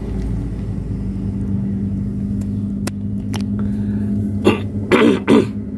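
A steady low hum runs under everything, with a couple of light clicks about three seconds in. Near the end come three short vocal sounds from a person, not words.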